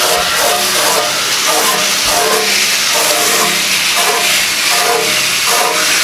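Garden hose spray nozzle jetting water down through the fan grille into an air-conditioner condenser unit: a steady hissing spray. The water is washing dirt out through the coil fins from the inside.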